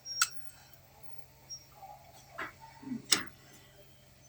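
Three sharp clicks of a blade cutting into the plastic insulation of thin wires to bare the copper.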